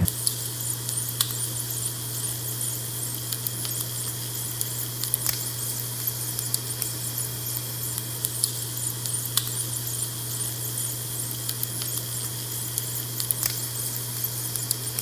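Food frying in hot oil in a pan: a steady sizzle with frequent small crackles and pops, over a steady low hum.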